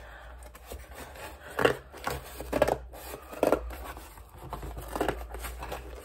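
Scissors cutting through corrugated cardboard: a run of separate crunching snips, roughly one a second.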